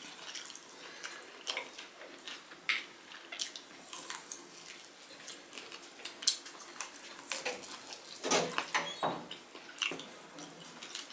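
Close-up hand-eating sounds: wet chewing and lip smacks, with fingers mixing polao rice and curry on a plate, as a string of irregular short clicks and smacks, louder for a moment about eight seconds in.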